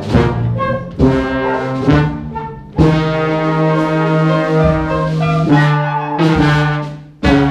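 Large live brass-and-woodwind ensemble playing: brass chords with sharp attacks about once a second, a long held chord in the middle, and a short break near the end before the next chord.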